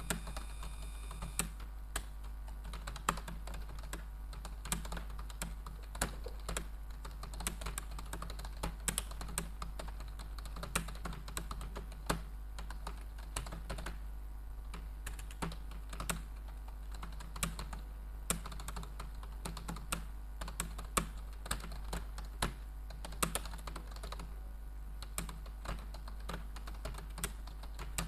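Fast touch-typing on a computer keyboard: a quick, irregular stream of key clicks, over a steady low hum.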